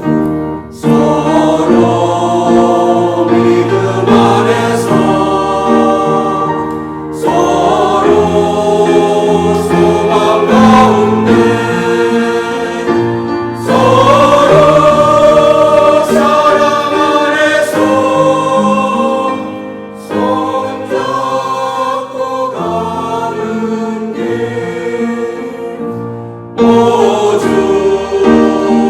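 Church choir singing a Korean hymn in parts, sustained chords phrase after phrase, with a brief break between phrases about every six or seven seconds.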